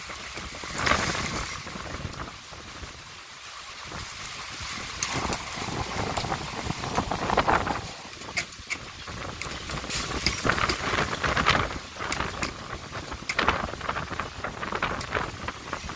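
Wind-driven rain: a steady hiss of rain with gusts of wind swelling and fading every few seconds, and scattered sharp ticks throughout.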